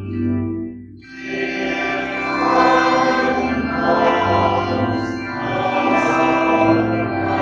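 Hymn music with choir singing, held chords that dip briefly about a second in and then swell back.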